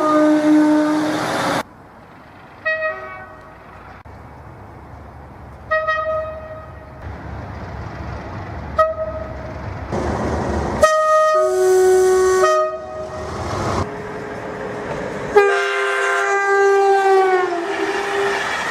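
A string of train horn soundings from different trains: short single toots, then a two-tone horn sounding a high note followed by a low note, and a long final blast whose pitch slides down near the end. Rumbling train noise runs between the soundings.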